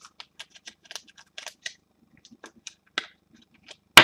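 A run of light, irregular clicks and ticks, a few each second, ending in one sharp, louder knock.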